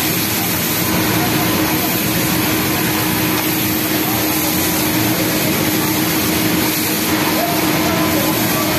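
Industrial flatlock sewing machine running steadily while hemming a knit T-shirt sleeve, a continuous motor-and-needle whir with a steady hum, over the din of other sewing machines on the factory floor.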